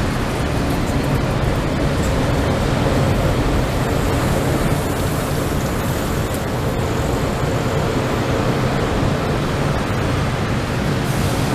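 Mixed freight train's cars rolling past: a steady rumble and hiss of steel wheels on rail.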